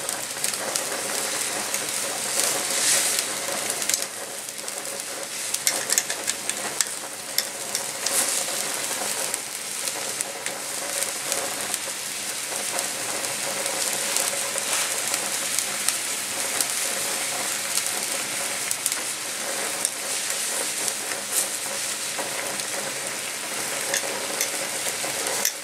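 Seafood fideuà broth bubbling and sizzling steadily in a steel paella pan on a gas burner, with metal tongs now and then clicking and scraping against the pan as the seafood is moved.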